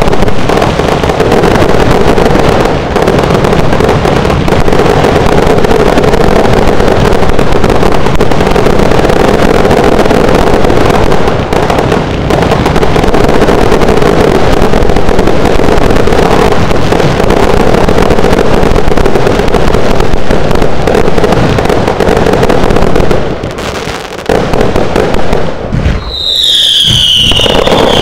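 A consumer fireworks battery firing a continuous rapid barrage of shots and crackling, loud enough to overwhelm the microphone. It pauses briefly near the end, then gives a couple of falling whistles.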